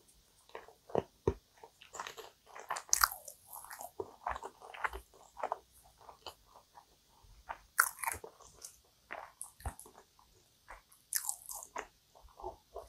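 Close-miked chewing of a mouthful of cream-filled kouign-amann pastry, the crisp flaky crust crunching in irregular crackles, loudest about two to three seconds in and again around eight and eleven seconds.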